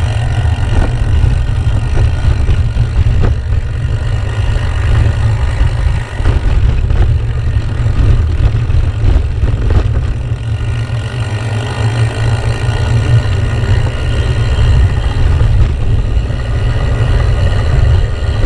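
Steady low rumble of riding a gravel bike along a rough village lane: wind on the bike-mounted camera's microphone and the tyres rolling over cobbles and dirt, with a few short jolts.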